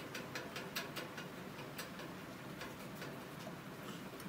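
Irregular wet clicks and smacks, a few each second, as a mare licks her newborn foal.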